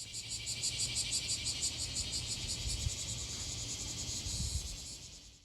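Insects chirping in a steady, fast pulsing rhythm of about six pulses a second, with a low rumble beneath; it cuts off suddenly at the end.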